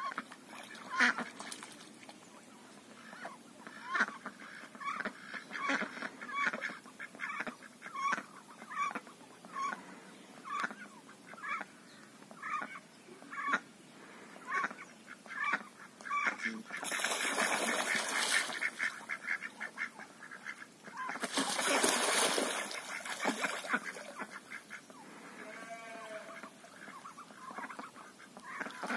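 A flock of domestic waterfowl calling repeatedly: short honking calls about once or twice a second, then two louder stretches of dense, noisy calling or commotion partway through, and a longer drawn-out call near the end.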